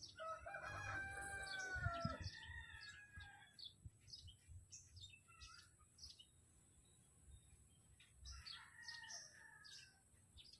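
A rooster crowing faintly: one long crow of about two seconds that drops in pitch at the end, and a weaker second crow about eight seconds in, with small birds chirping.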